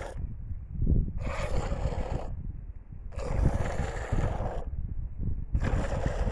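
Goat's milk squirted by hand into a frothy plastic bowl: three spells of hissing milk streams, about a second in, about three seconds in and near the end, over a constant low rumble.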